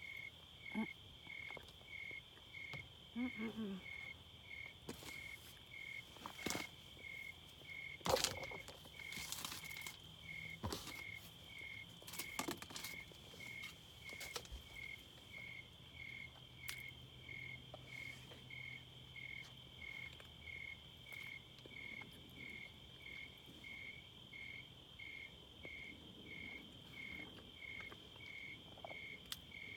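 Night insects chirping steadily: an even chirp a little more than once a second over a continuous higher trill. A few sharp rustles and clicks come in the first half.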